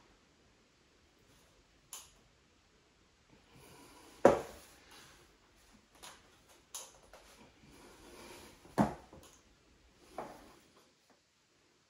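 Handling noise from PVC drain plumbing work: a sharp knock about four seconds in as a length of PVC pipe is set upright on the floor, a second sharp knock about five seconds later, and a few lighter taps and rustles.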